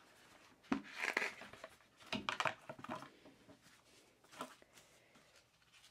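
Paper and cardboard handling: a paper manual sleeve slid and lifted out of a cardboard product box. There is a sharp tick just under a second in, short rustles around one and two seconds in, and a smaller one later.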